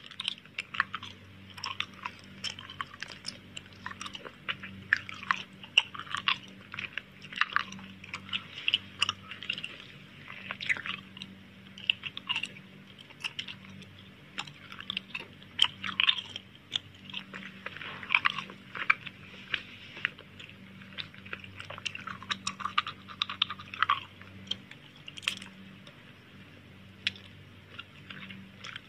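Close-miked chewing and crunching of crisp food, a dense irregular run of small crackles and bites, over a faint steady low hum.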